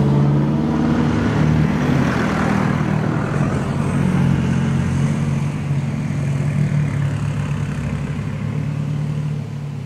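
Four-wheel-drive engine running steadily at low driving speed, a constant low hum that eases off slightly near the end.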